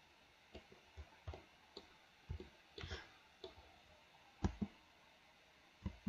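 Faint, scattered clicks of a computer mouse and keyboard, about a dozen irregular clicks, the loudest a close pair about four and a half seconds in.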